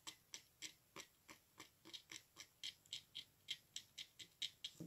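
Faint scratching of a scalpel blade on watercolour paper in quick short strokes, about four or five a second, scraping away paint to lift a white highlight on a painted water droplet.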